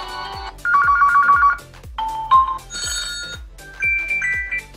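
Ringtone previews from a Honor 6X phone's speaker, switched one after another and each cut short. A fast electronic two-note beeping trill plays about a second in, followed by several brief chime and bell-like phrases. A steady low beat runs underneath.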